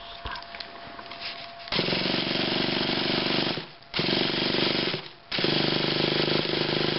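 A shaft-start electric starter spinning over a big-block nitro RC truck engine in three bursts, with a steady mechanical whir and no firing. The owner suspects the starter's one-way bearing is slipping.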